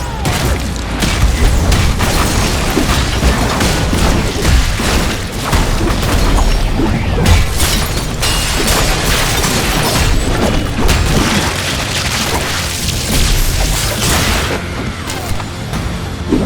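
Dense, continuous layered fight sound effects: heavy booms and crashes with many rapid impacts and a deep rumble, over music.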